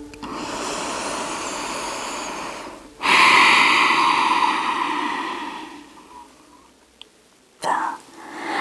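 A woman breathing deeply and audibly while holding a seated forward fold: one long breath of about three seconds, then a louder one of about three seconds that fades away, and a brief breath near the end.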